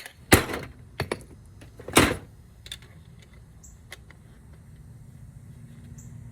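Metal clanking as scrap pieces and hand tools are handled: two loud, ringing clanks in the first two seconds and a few lighter clicks. A low steady hum grows in the background in the second half.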